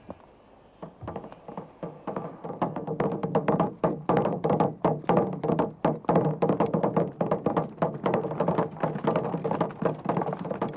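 Military field drum with a wooden shell, beaten with wooden sticks in a fast run of strokes. It starts faintly about a second in and grows loud within the next two seconds.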